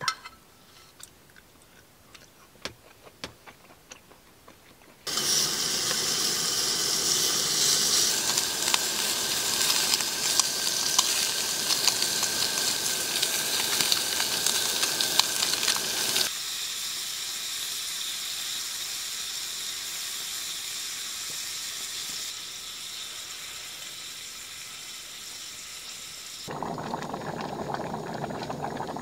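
A few light clicks, then slices of beef sizzling in a hot pan, starting suddenly about five seconds in and easing off in steps. Near the end it changes to a pot of stew bubbling.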